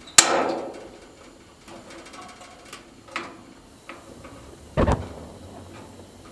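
Gas radiant heater being lit: a sharp metallic clank that rings briefly, a few light clicks, then a low whump about five seconds in as the burner catches.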